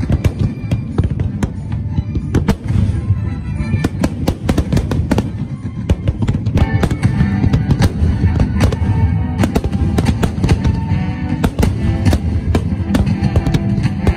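Aerial fireworks shells bursting in quick succession, a dense run of sharp bangs and crackles several times a second, with music playing underneath; the music tones stand out more in the second half.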